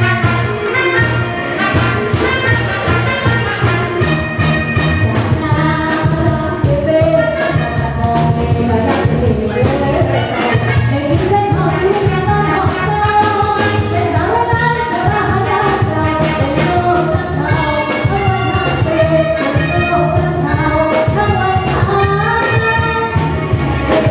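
Live Thai luk thung band music with a steady drum beat and brass horns, and a woman singing into a microphone over it.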